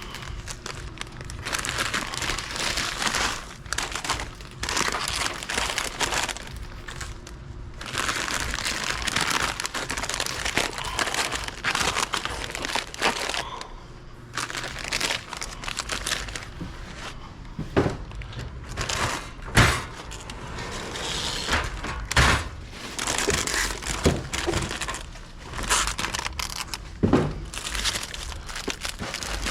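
Plastic snack bags crinkling and rustling as they are handled and loaded into a vending machine. Several sharp knocks and clacks come through in the second half.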